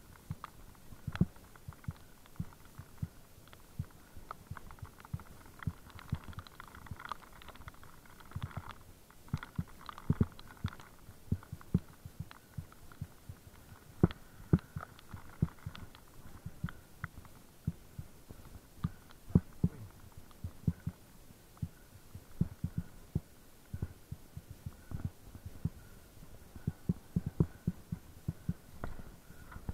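Irregular low thumps and knocks, several a second in uneven clusters, over a faint steady hum.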